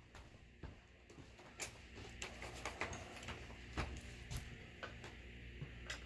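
Scattered light clicks and taps from handling a vacuum cleaner while its floor head is being swapped.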